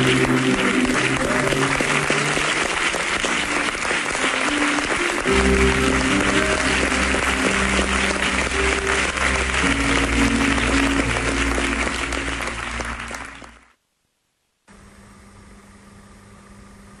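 Music with held chords, joined by a bass line about five seconds in, under continuous applause. Both fade out near the end, and after a second of silence comes a steady low room hum.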